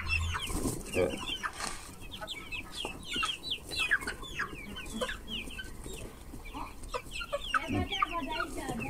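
A flock of young chickens clucking and cheeping as they crowd around to be hand-fed corn, a constant stream of many short, high, overlapping calls.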